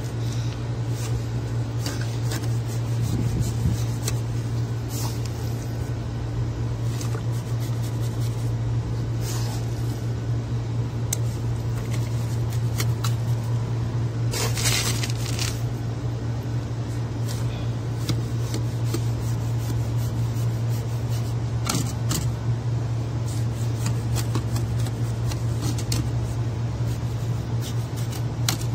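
A steady low machine hum, with a few short scrapes and taps as wet cement mortar is packed by hand around a PVC drain pipe joint.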